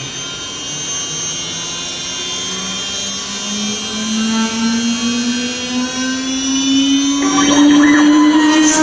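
CNC engraving-milling router running a job with its rotary attachment: a machine whine that rises slowly in pitch, with a rougher rasping noise joining about seven seconds in.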